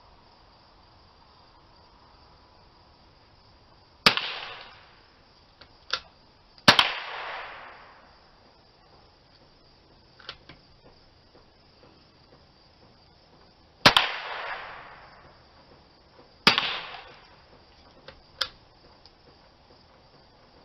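Four loud rifle shots at uneven intervals, each trailing off in a short echo, with a few fainter, shorter cracks between them.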